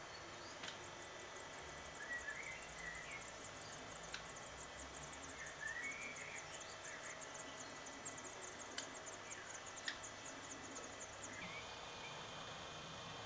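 Black redstart nestlings begging: a faint, rapid series of thin, very high calls that runs for about ten seconds and stops shortly before the end, with a few short, lower chirps in between.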